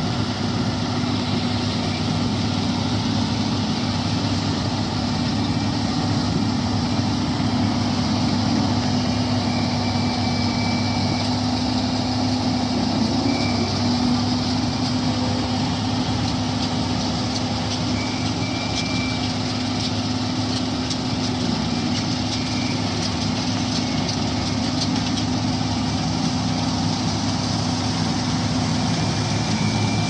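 Combine harvester running steadily while cutting wheat: a steady engine hum with a broad mechanical rush over it, growing a little louder near the end as the machine comes closer.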